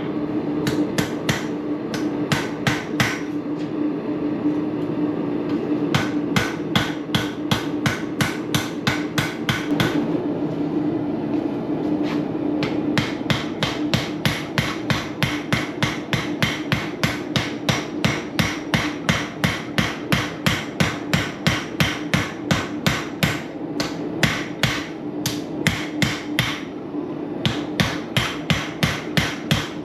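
Hammer blows on a hot Damascus steel knife billet being forged to shape, a steady run of sharp metallic strikes about two to three a second, with two brief lulls, over a steady low hum.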